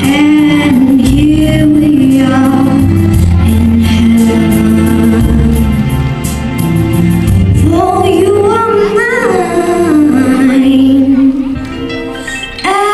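A young girl singing into a microphone over recorded backing music with a steady bass line and beat, heard through the hall's sound system. The music drops back briefly near the end.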